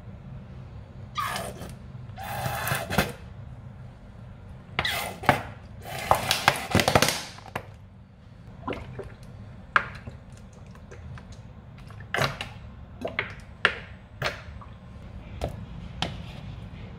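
Cooking oil glugging out of a bottle into a frying pan in several gurgling pours over the first seven seconds or so. These are followed by scattered light clicks and taps, over a steady low hum.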